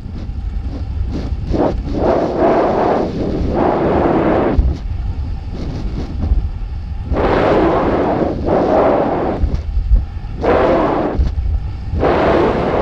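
Wind buffeting the microphone of a camera carried by a high-altitude weather balloon, coming in irregular rumbling gusts a second or two long over a steady low rumble.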